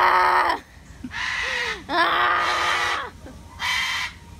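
White cockatoo screeching, a series of loud harsh calls about once a second with short pauses between them.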